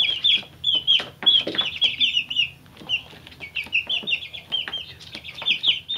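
Two-week-old chicks peeping: a rapid string of short, high, slightly falling peeps, with a few light knocks mixed in.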